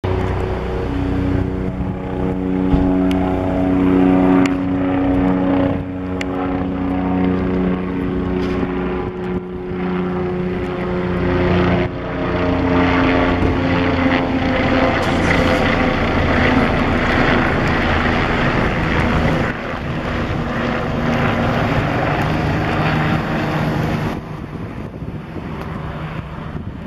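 Bell 407 helicopter flying by, its four-blade main rotor and single turbine engine making a steady tonal hum as it approaches. The sound grows louder and rougher as the helicopter passes close overhead, then drops suddenly near the end.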